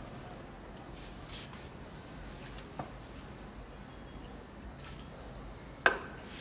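Low steady background hiss with a few faint clicks, and one sharp knock near the end.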